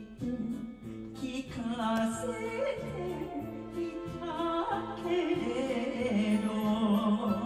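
A woman singing an enka song with vibrato into a handheld microphone over a karaoke backing track with a steady, rhythmic bass line.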